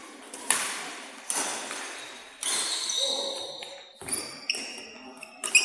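Badminton rally: racket strings striking a shuttlecock, several sharp hits about a second apart that ring on in a large hall, mixed with high squeaks of court shoes on the floor in the second half.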